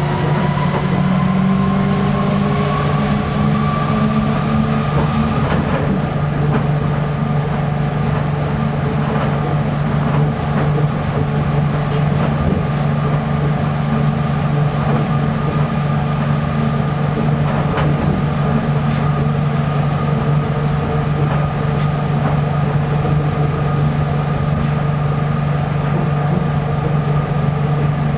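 Nippori-Toneri Liner rubber-tyred automated guideway train running on its elevated concrete guideway, heard from inside the car: a steady low hum from the tyres and running gear, with a motor whine that rises in pitch over the first few seconds as the train gathers speed and then holds level at cruising speed. Faint clicks come now and then from the guideway joints.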